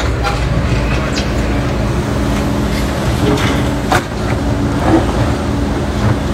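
Diesel engine of a tracked excavator running steadily under load as the machine drives down a dirt slope.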